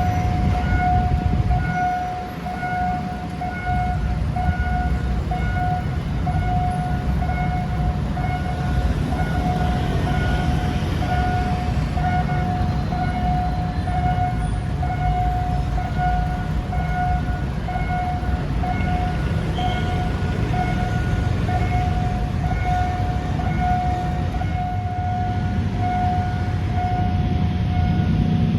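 Low rumble of a GEK-class diesel-electric locomotive running with a passenger train, growing a little louder near the end. A steady high warning tone beeps in quick, even repeats throughout.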